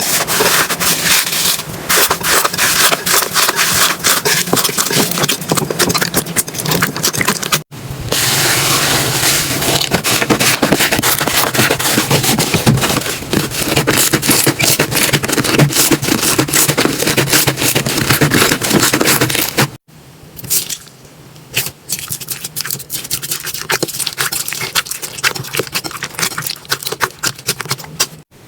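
Slime being pressed, squeezed and poked by hand, giving a dense stream of crackling, clicking pops. It breaks off abruptly twice; after the second break the clicks are sparser and quieter.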